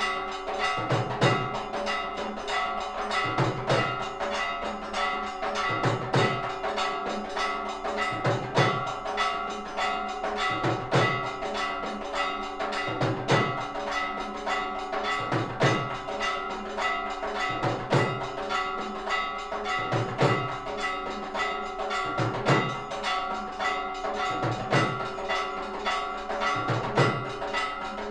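Hindu temple aarti bells ringing continuously, with rapid metallic strikes. A deep stroke lands about every two and a half seconds.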